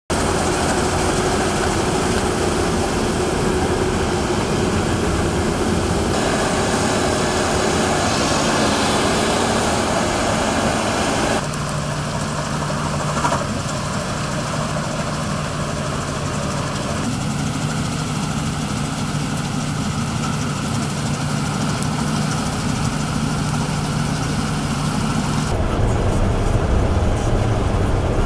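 Claas combine harvester's engine and threshing machinery running steadily while harvesting and unloading grain. The sound changes abruptly a few times where shots are joined, with a steady low engine hum in the middle and a deeper rumble near the end from inside the cab.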